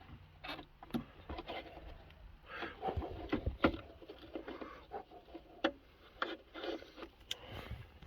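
Hands working on car wiring, cutting and handling wires: irregular soft clicks, scrapes and rustles.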